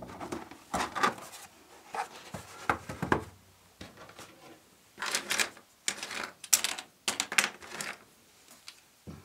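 Irregular clicks, taps and rustles of materials being handled, about a dozen in bursts with short gaps between.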